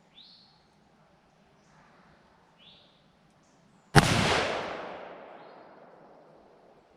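A single rifle shot about four seconds in, loud and sharp, its echo dying away over the next two to three seconds. Small birds chirp with short falling calls before it.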